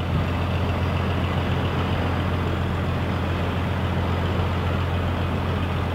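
Small fishing boat's diesel engine running steadily as it motors past, a deep constant hum with a wash of broad noise over it.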